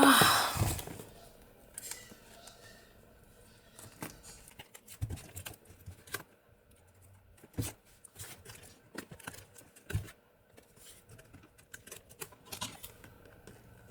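Packaging being handled: a brief louder rustle at the start, then scattered light taps, clicks and rustles.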